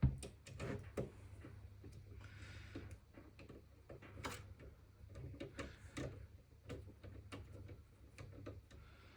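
Irregular small clicks and knocks of metal parts being handled as a power supply is screwed into a PC case, with a louder knock at the very start.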